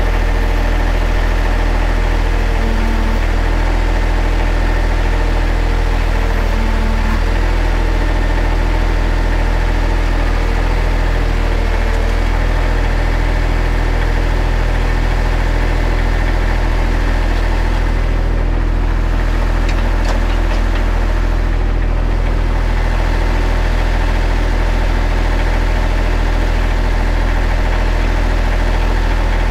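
Tractor engine idling steadily, loud and close, with a deep even hum.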